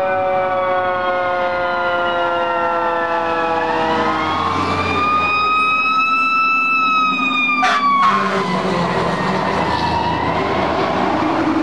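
Fire engine siren winding slowly down, then winding back up to a high wail and slowly falling again, with a short sharp blast a little before 8 seconds in; it starts winding up once more near the end.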